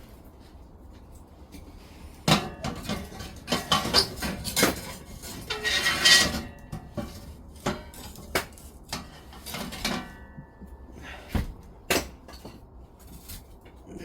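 Objects being handled: irregular knocks and clatters, with a couple of brief metallic rings, about six seconds in and again near ten seconds.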